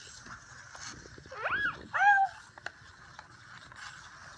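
Robot toy cat giving two short electronic meows about half a second apart, each rising then falling in pitch.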